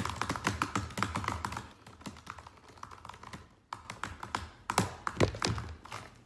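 Fast typing on a laptop keyboard: a rapid, uneven run of key clicks that thins out in the middle and picks up again later.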